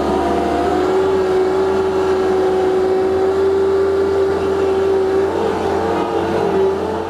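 A small loader's engine running at steady high revs with a strong whine. The pitch steps up a little about five seconds in.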